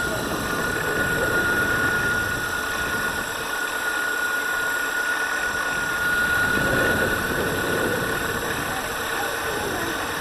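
Electric mountainboard rolling on asphalt: a rough rumble of its off-road tyres and drive that swells about six seconds in as it passes closer, over a steady high-pitched whine.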